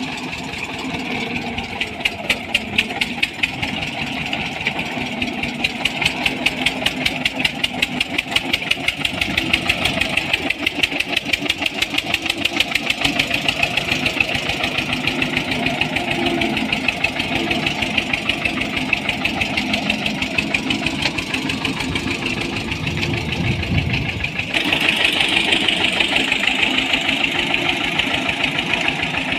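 Old small tractor's diesel engine running slow and steady under load while hauling a trailer of sprayer tanks, its firing pulses clearly knocking. About 25 seconds in it suddenly gets louder and brighter.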